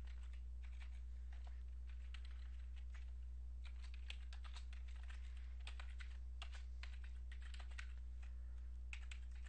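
Faint typing on a computer keyboard: irregular key clicks in quick runs and pauses, over a steady low electrical hum.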